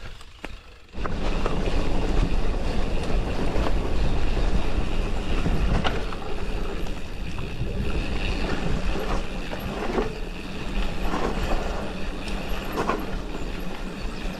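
Mountain bike moving at speed on a forest trail: wind rushing over the helmet camera's microphone and tyre rumble, with the bike knocking and rattling over bumps. The rush starts suddenly about a second in.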